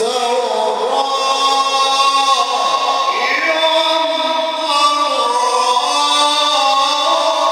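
A male Quran reciter's voice in Egyptian mujawwad style, holding a long ornamented melisma that steps down and back up in pitch without a pause.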